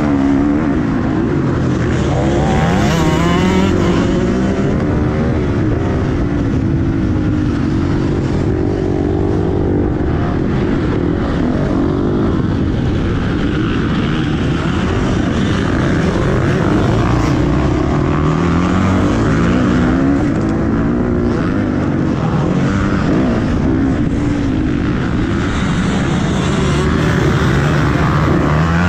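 Motocross bike engine heard on board from the rider's helmet, revving up and down over and over as the rider accelerates, shifts and backs off for corners.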